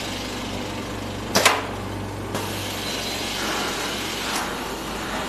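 The AK Pro machine hisses steadily with escaping air after its emergency stop is pressed, with a low hum that stops a little over two seconds in. There is a sharp click about a second and a half in and a fainter one near the end.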